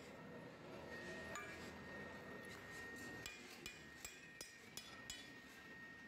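Freshly cast steel latch cluster clinking and knocking as it is pried and shaken out of the moulding sand: a string of sharp metallic clinks, most of them close together in the second half.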